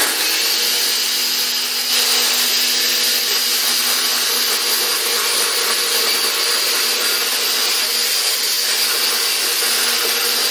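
Electric countertop blender switched on and running steadily, its motor puréeing chopped scallion, onion, garlic and thyme with a little water into a seasoning paste. It starts abruptly and gets a little louder about two seconds in.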